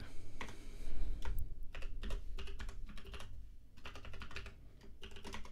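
Computer keyboard typing: irregular keystrokes with short pauses, thinning out for a moment past the middle, as a sudo command and then a password are typed at a terminal.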